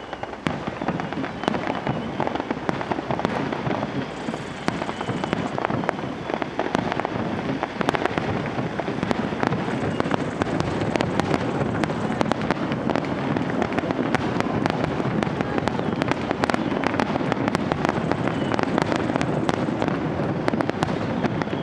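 Rapid-fire starmine fireworks barrage: shells launching and bursting in quick succession, a dense run of bangs and crackles without a pause.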